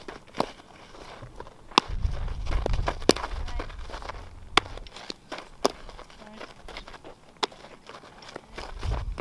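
Sharp cracks of a softball being hit and caught in a leather glove, about six spread through, with footsteps scuffing on infield dirt between them. A low rumble comes and goes.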